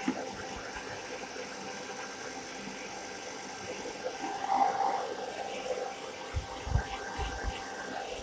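Handheld hair dryer running steadily, blowing warm air over a long-haired guinea pig's damp fur, with a few short low bumps near the end from handling.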